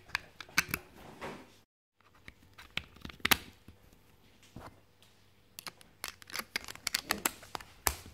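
Plastic clicks and rattles from batteries being pressed into a TV remote control's battery compartment and the compartment cover being fitted back on. The clicks are scattered at first, and a quick run of sharp clicks comes in the last few seconds.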